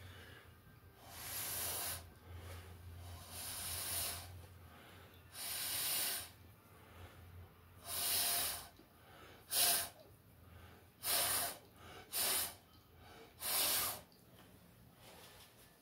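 Eight hissing puffs of blown air a second or two apart, the first few longer and the last ones short and sharp: air being blown to push wet acrylic paint across the canvas in a Dutch pour.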